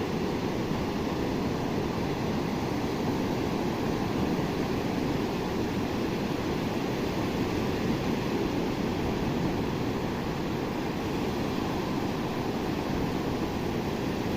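Sea surf washing onto a beach: a steady rushing with no separate wave crashes standing out.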